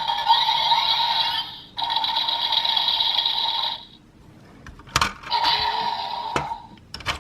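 DX Dark Seiza Blaster toy playing electronic sound effects through its small speaker: two buzzy, tinny bursts of about two seconds each, then a short click and a shorter burst, with more clicks near the end as the toy is worked.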